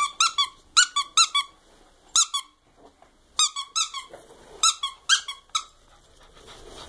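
Squeaky turkey-bone dog toy squeaking over and over in quick runs of two to four short, high squeaks, with a single squeak and short pauses between the runs.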